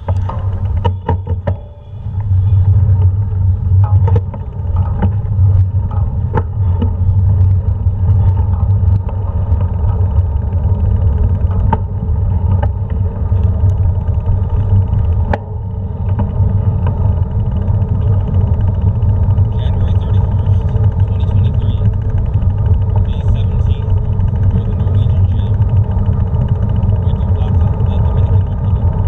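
Bike riding over stone paving: a steady loud low rumble with a constant hum. Scattered clicks and knocks come through the first several seconds as it gets moving.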